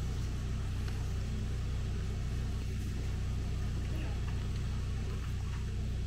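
A steady, low engine drone that holds an even pitch.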